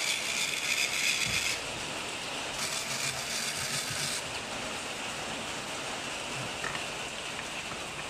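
Steady hiss of rain falling. The hiss is brighter for about the first second and a half and again around the third to fourth second.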